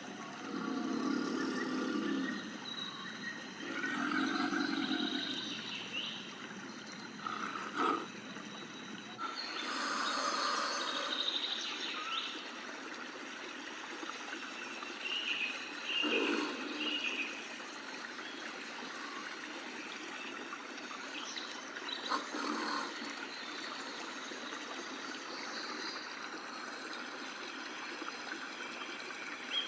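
Steady trickling and running water, with a few short bird chirps over it.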